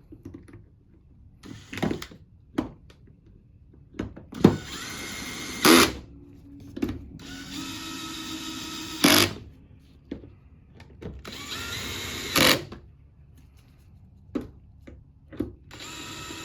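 Power drill/driver driving the cover screws back in, one after another: three runs of its whirring motor, each ending in a sharp crack as the screw seats, and a fourth run starting near the end. Short handling clicks fall between the runs.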